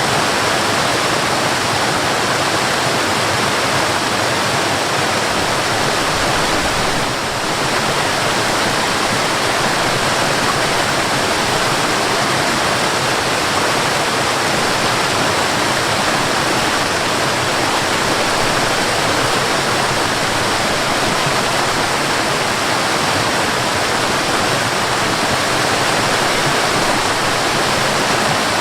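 Mountain waterfall pouring: a steady, dense rush of falling water, briefly a little softer about seven seconds in.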